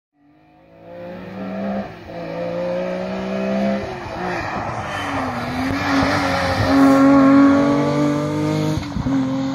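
Rally car driven hard along a gravel stage, its engine at high revs and growing louder as it comes close. The note drops briefly at gear changes, and a rough gravel and tyre noise rises under it as the car passes.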